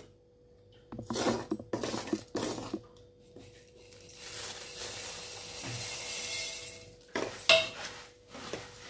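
A steel spoon knocks and scrapes against a metal kadhai of thick jaggery syrup. About four seconds in comes a soft, steady rushing hiss as flattened rice (poha) is poured in from a plate. Near the end, more spoon clinks and scrapes as the poha is stirred into the syrup.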